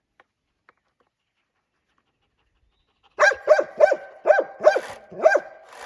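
Golden retriever barking, a quick run of about six or seven barks that starts about three seconds in.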